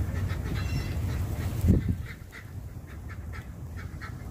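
Backyard poultry giving a run of short, repeated calls. A low rumble ends in a single loud thump about two seconds in.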